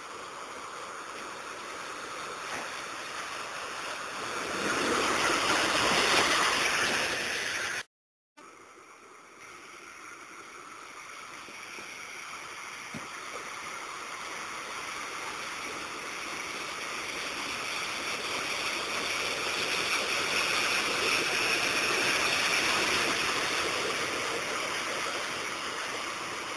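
Floodwater churned and thrown aside by a Jeep Grand Cherokee WJ driving through a flooded dirt road: a steady rushing splash. It swells to a peak, cuts off about eight seconds in, then builds again and slowly fades.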